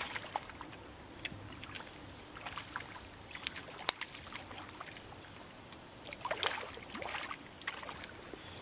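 Light splashing and sloshing of river water as a small hooked fallfish is played in close and landed by hand, with a cluster of splashes about six and a half seconds in.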